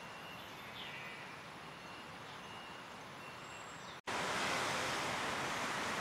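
Outdoor background ambience: a steady hiss with a few faint, short bird calls, then at a cut about two-thirds in it jumps to a louder, dense steady hiss.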